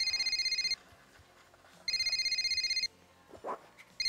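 Landline telephone ringing with a rapid electronic warble, not a bell. There are two rings of about a second each, and a third starts near the end.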